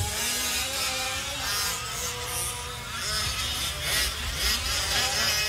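Engines of fifth-scale RC off-road race trucks buzzing together, their pitch rising and falling with the throttle.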